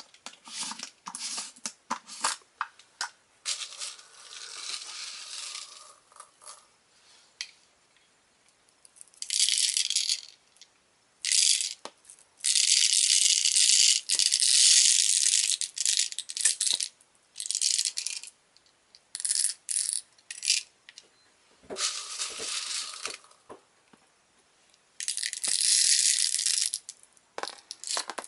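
Plastic 6 mm airsoft BBs rattling as they are poured by hand into a Crosman speed loader's plastic tube, in runs of a few seconds, with scattered clicks at first.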